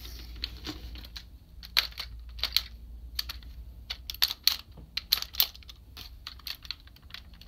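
Hard plastic clicks and taps at irregular intervals from a DX Kerberios toy robot being handled, its arm and dog-head parts shifted and its joints clicking, the sharpest clicks about two, two and a half, four and a half and five and a half seconds in.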